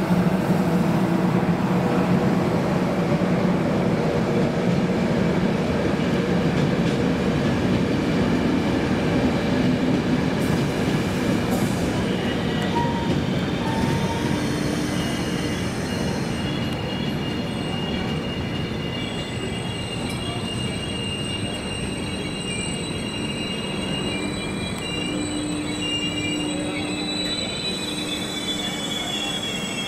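CP Intercidades train of Sorefame and Corail coaches behind a 5600-series electric locomotive, rolling slowly past while braking to a stop. Wheels rumble on the rails, getting gradually quieter, and high-pitched brake and wheel squeals set in about halfway through.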